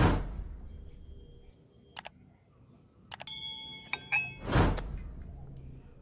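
A few sharp clinks of metal or glass dishware, ringing briefly, about three to four seconds in. This falls between two whooshing swells of noise, one at the start and one near the end, like gusts of wind on the microphone.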